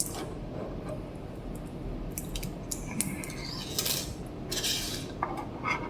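Small metal repair tools clicking and scraping against an iPhone XS as its glued-in battery is pried out.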